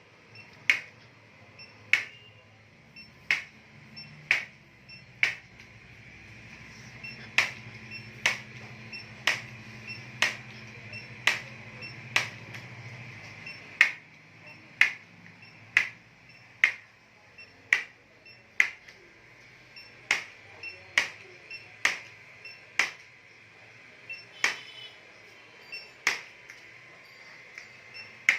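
Chiropractic impulse adjusting gun firing again and again, sharp clicks with a short metallic ring, about one a second at uneven spacing, as it delivers thrusts during a spinal adjustment.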